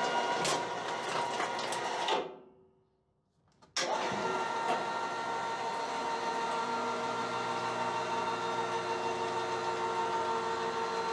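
Electric motor of a homemade elevator running steadily with a whining hum as the steel platform is lowered, crushing an aluminium drink can beneath it. The hum breaks off a little after two seconds in and starts again sharply about a second and a half later.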